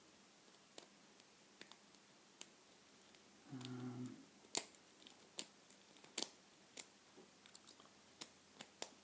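Sharp, irregular metallic clicks of a snake rake rocking across the pin tumblers of a Yale 841 five-pin padlock, the pins being set and overset. A short low hum sounds about a third of the way in.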